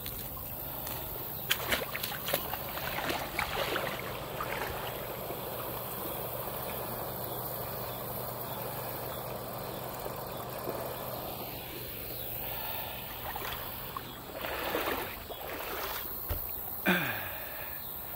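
Shallow water trickling and gurgling at the outlet of a drain pipe, with a few splashy sloshes from about a second and a half in. Near the end, a short sharp squeak falls steeply in pitch.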